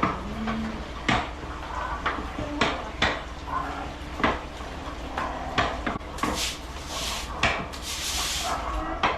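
Irregular knocks and clatters, roughly one every half second to a second, with a brief hiss about six seconds in and a longer hiss shortly before the end.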